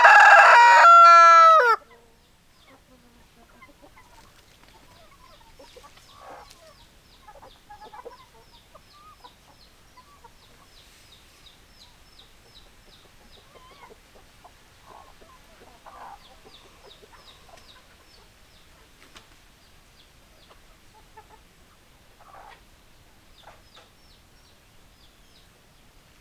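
A rooster crows loudly at the start, the call breaking off about two seconds in. Then hens cluck quietly on and off, over a fast run of high, thin chirps.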